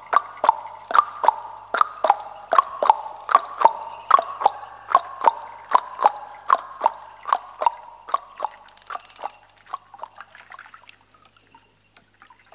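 Clip-clop hoofbeats of a trotting little horse, imitated with pitched clicks at two alternating pitches in a steady trotting rhythm. Near the end they slow and fade out, as if the horse rides away.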